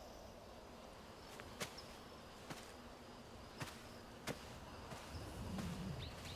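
Quiet night-time outdoor ambience with a faint hiss and a few sharp, irregular clicks or snaps about a second apart. A short low hum comes near the end.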